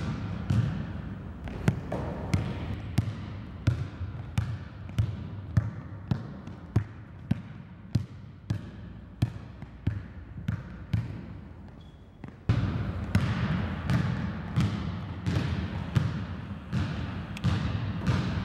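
Basketball dribbled on a hardwood gym floor, bouncing in a steady rhythm of about two bounces a second, each with a short echo. About two-thirds of the way through, a steady background noise comes up under the bounces.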